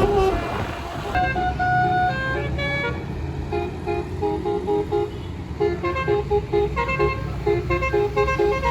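Twelve-note roof-mounted 'telolet' bus horn playing a tune: a few held notes, then from about three seconds in a fast run of short, choppy repeating notes, over a steady low rumble.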